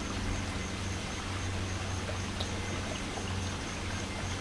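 Steady, even rush of running water, with a low steady hum underneath.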